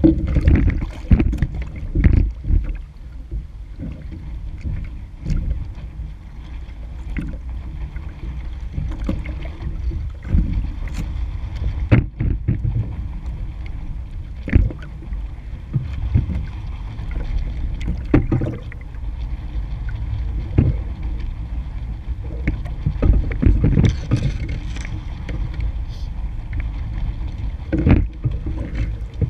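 Sailing dinghy under way in choppy water: a steady low rumble of wind on a deck-mounted microphone and water rushing past, with the hull knocking and slapping against the waves every few seconds.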